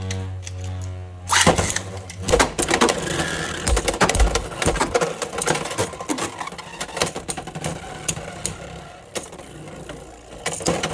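Two Beyblade X spinning tops battling in a plastic stadium. A steady whir for the first second or so, then a loud crack as they land about a second and a half in, followed by constant rattling and grinding with many sharp clicks as the tops collide.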